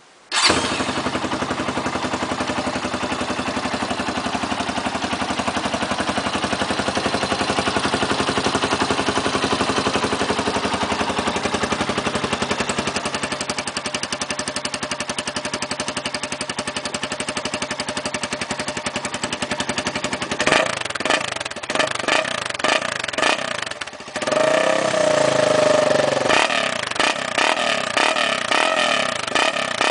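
1997 Honda NX 200's single-cylinder four-stroke engine running through its old original exhaust. It comes in suddenly about half a second in and idles steadily. From about 20 seconds on, the throttle is blipped repeatedly in short revs, with one longer rev rising and falling a few seconds later.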